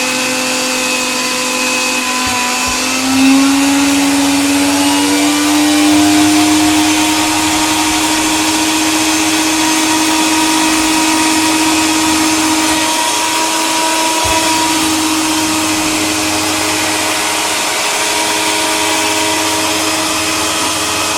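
Electric coffee grinder running continuously: a steady motor whine over a grinding noise, its pitch stepping up a little about three seconds in.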